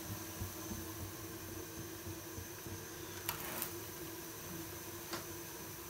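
Steady low hum and hiss, with a short scrape about three seconds in as a hand moves the maize-flour roti on the iron tawa, and a small tick about a second later.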